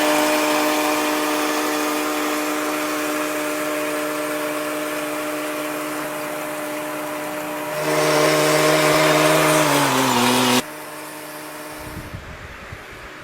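A machine's motor running with a steady pitched hum. It grows louder about eight seconds in, then its pitch falls and it cuts off abruptly; a quieter hum follows, then low wind rumble on the microphone near the end.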